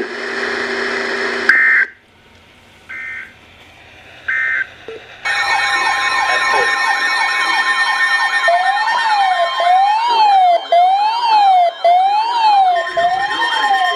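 Emergency Alert System tones: three short two-tone data beeps, the end-of-message code closing the previous warning. About five seconds in, a loud alert signal starts, with siren-like tones rising and falling over steady tones.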